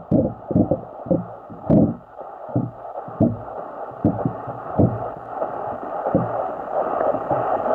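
Pool water sloshing and knocking against a floating waterproof camera housing, heard muffled through the sealed camera's microphone as irregular low thuds, about one or two a second.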